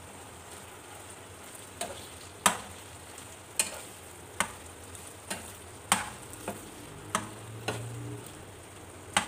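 Metal spoon stirring beef liver with chopped ginger and garlic in a frying pan, knocking against the pan about ten times at irregular intervals, over a steady low sizzle of the liver simmering in its own juices.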